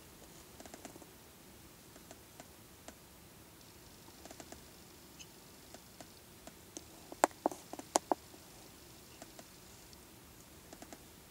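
Faint scattered clicks and ticks, with a quick run of about six sharp clicks about seven to eight seconds in, the loudest sounds here.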